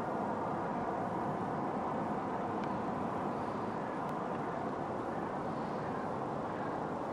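Continuous, even noise of heavy traffic on a multi-lane highway, with no single vehicle standing out.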